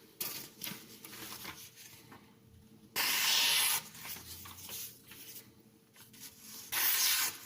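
A steel knife blade scraping across a fine 6000-grit aluminium oxide sharpening stone in several short, uneven strokes. Two longer, louder strokes come about three seconds in and near the end.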